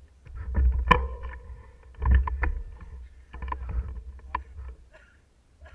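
Mountain bike ridden over a bumpy forest trail: low wind rumble on the mounted camera's microphone, with bursts of clattering rattles and knocks from the bike over the bumps, dying away near the end.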